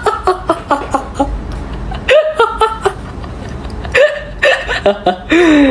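A young man laughing uncontrollably in rapid short bursts, with high squeals about two and four seconds in and a falling cry near the end.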